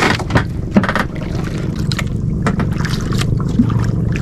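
Small outrigger fishing boat's engine running steadily with a low hum, under scattered light clicks and knocks from fishing line being handled on board.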